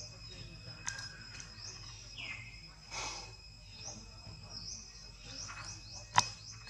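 Outdoor ambience of small birds chirping over and over, with a steady high insect drone underneath. A single sharp click about six seconds in is the loudest sound.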